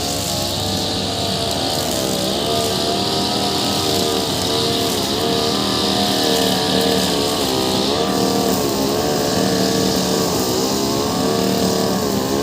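Two-stroke petrol brush cutter running at high revs, its pitch dipping and recovering again and again as the spinning wire-cable head bites into grass.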